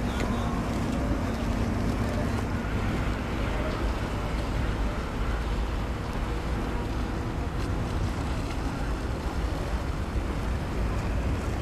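Steady low rumble of boat engines on a canal, mixed with choppy water and wind buffeting the microphone.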